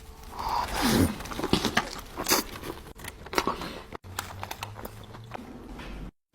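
Close-miked chewing of a mouthful of fried hot chicken slider: irregular wet smacks and crunchy clicks.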